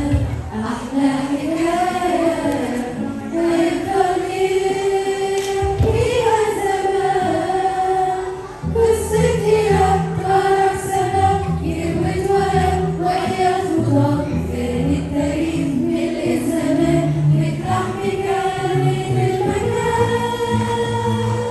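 Women's choir singing a hymn together into handheld microphones. A low bass accompaniment comes in a little under halfway through and carries on under the voices.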